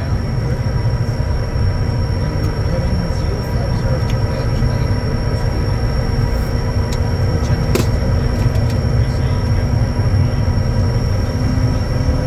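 Bombardier Challenger 350's twin turbofan engines running: a steady low rumble with several steady whining tones over it. A few faint clicks come about eight seconds in.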